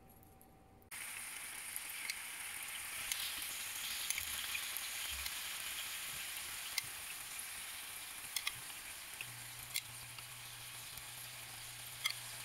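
Marinated chicken pieces frying in hot oil in a frying pan: a steady sizzling hiss with scattered crackles and pops, which starts suddenly about a second in.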